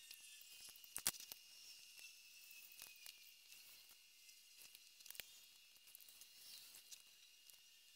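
Faint pencil scratching on paper pressed against window glass, with scattered small clicks and taps. The loudest is a sharp click about a second in.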